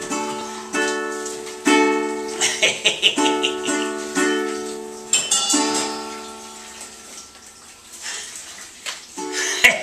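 Ukulele strummed in chords in a rhythmic pattern. About two-thirds of the way through the chords ring and fade away, and the strumming starts again near the end.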